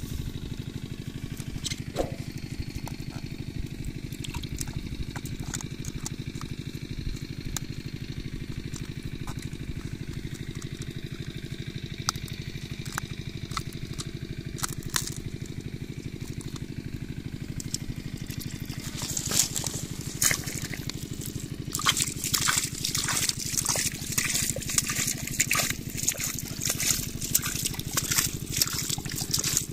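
From about two-thirds of the way in, water poured from a plastic bottle trickles and splashes into a plastic mesh basket set in mud as a catfish trap. A steady low mechanical drone runs underneath throughout.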